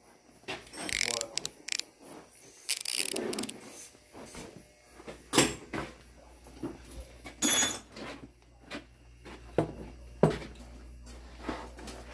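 Scattered clanks, clicks and rattles of hand tools and metal parts being picked up and handled, a dozen or so sharp knocks spread out with a couple of short scrapes between them. A low steady hum comes in about halfway through.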